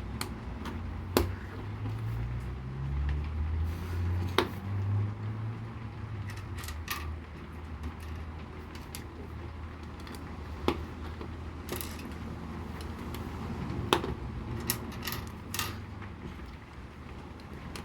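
LEGO bricks being handled and pressed together: scattered sharp clicks and light rattles, over a low rumble that swells for a few seconds early on and then stays steady.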